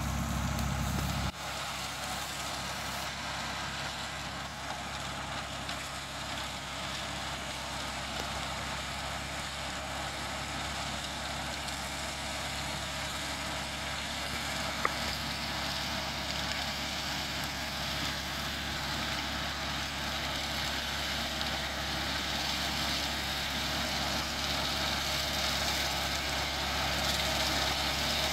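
Landini 10000 tractor running steadily under load while driving a Kirchner flail mulcher through tall dry weeds. The sound grows slowly louder as the tractor comes closer.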